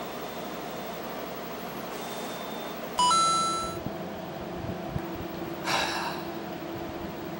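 A loud electronic beep about three seconds in: a short tone that steps up in pitch and fades over most of a second, over a steady background hum. A brief, fainter sound follows near the end.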